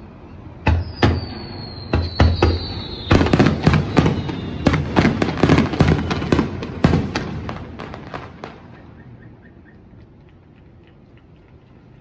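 Aerial fireworks bursting overhead. A few sharp bangs come about a second in, under a high whistle that slowly falls in pitch. Then a rapid volley of bangs and crackle runs from about three to seven seconds and thins to faint crackling near the end.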